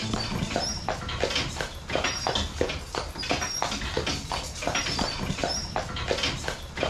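Horse's hooves clip-clopping at a steady walk, about three strikes a second, over the low rumble of a horse-drawn cart's wheels.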